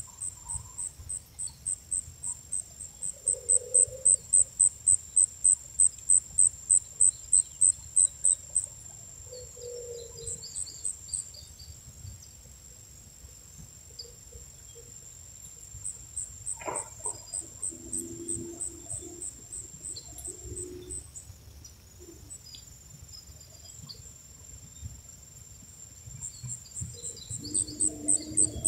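An insect chirping in short, evenly spaced high-pitched pulses, about four a second, in runs of several seconds that stop and start again, over a steady high hum from other insects. A single sharp knock comes a little past halfway.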